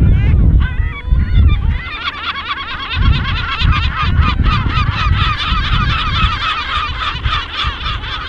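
A gull colony calling, many short overlapping calls forming a dense chorus that thickens about two seconds in. Wind gusts rumble on the microphone, strongest in the first second or two.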